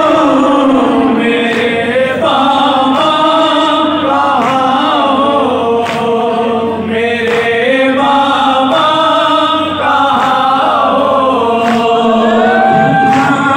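Male voices chanting a noha, a Shia lament: a lead reciter sings long, held, mournful notes into a microphone while a group of men sing along with him. There are no instruments.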